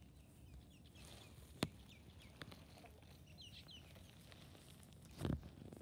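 Faint, high bird chirps over a quiet garden background, with a sharp click about a second and a half in and a soft thump near the end.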